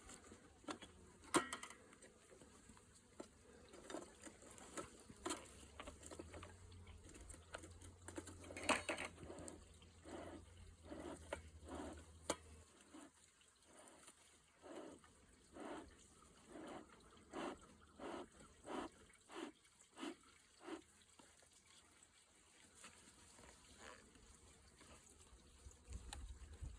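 Sugar-water syrup being poured from a jug into a hive feeder, faintly glugging in a run of short, even pulses through the middle of the stretch, with a few sharp clicks before it.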